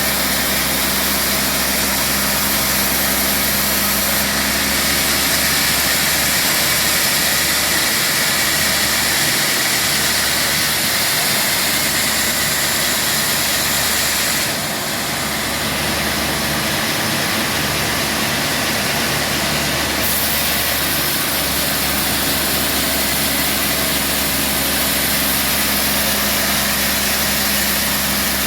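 Band sawmill running with a steady machine hum and a dense hiss over it, dipping briefly about halfway through.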